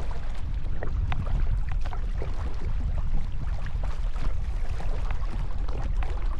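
Small water splashes and lapping around a canoe on choppy water, irregular and continuous, over a steady low rumble of wind on the microphone.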